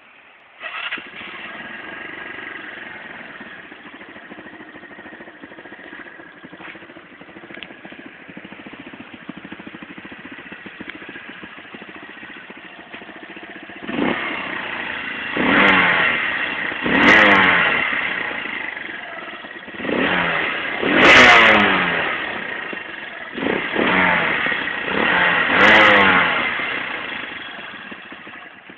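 Derbi Senda 125 motorcycle engine catching about a second in and idling steadily, then revved several times in the second half, each rev rising in pitch and falling back to idle.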